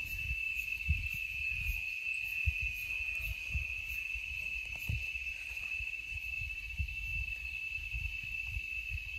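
Cicadas droning, one steady, unbroken high-pitched buzz, with irregular low thumps underneath.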